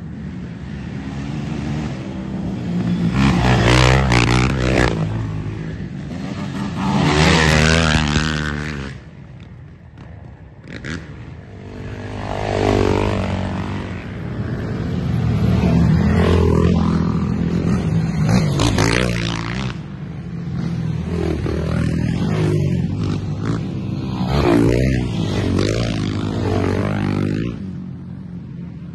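Race ATVs (quads) passing one after another at speed, each engine note swelling and fading as it goes by, with a brief lull about ten seconds in.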